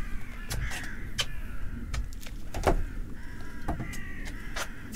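Harsh, cawing bird calls in two spells, one near the start and one near the end, among scattered sharp knocks and clicks. The loudest knock comes about midway.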